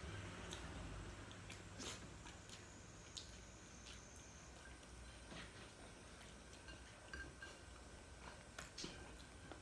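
Faint sounds of eating by hand: soft chewing and a few light clicks of fingers picking food off a plate.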